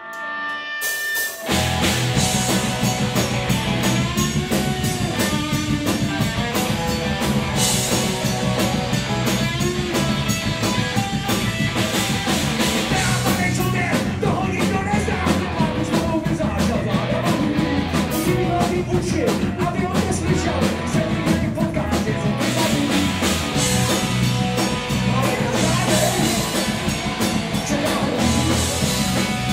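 Rock band playing live: drum kit, electric guitar and bass guitar with a singer. The full band comes in abruptly about a second and a half in, after a few held notes.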